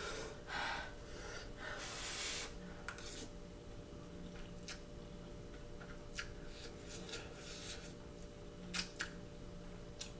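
Someone eating noodles with a fork: a few slurps in the first three seconds, then chewing and the fork clicking and scraping against the bowl now and then.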